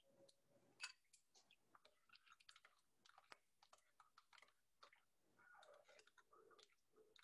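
Faint, irregular clinks and ticks of ice cubes and a metal spoon knocking against a ceramic bowl as a thick avocado mash is stirred, with one louder clink about a second in.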